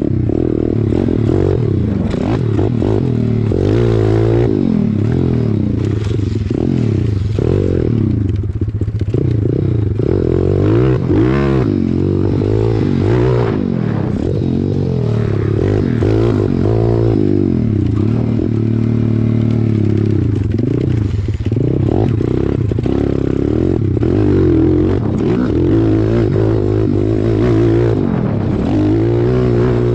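Single-cylinder four-stroke pit bike engine being ridden hard, its pitch rising and falling over and over as the throttle is opened and rolled off through the turns and jumps of a dirt track.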